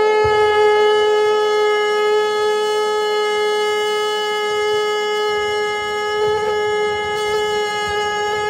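Shofar (ram's horn) sounding one long, steady, unbroken blast on a single held note.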